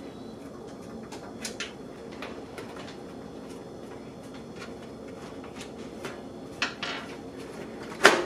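Light clicks and taps of thumbscrews being worked loose from a computer case's panel, with a sharp knock about 8 seconds in.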